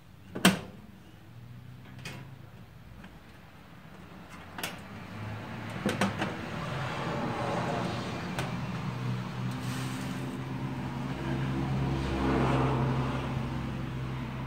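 Plastic front bezel of a computer tower case being handled and fitted against its metal chassis: one sharp click about half a second in, then a few lighter knocks. From about six seconds a steady low hum builds and cuts off suddenly at the end.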